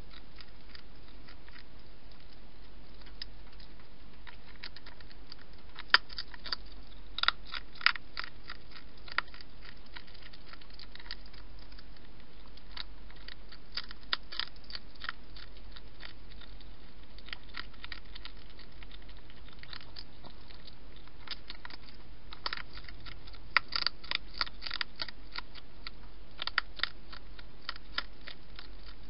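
Wild hedgehog eating, crunching its food in irregular bursts of sharp crunches, over a steady low hum.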